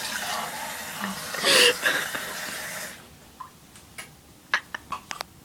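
A person wheezing and gasping with harsh, hissing breaths, with a short strained vocal sound about a second and a half in, as cinnamon powder irritates the throat. The breathing dies down after about three seconds, leaving a few small clicks.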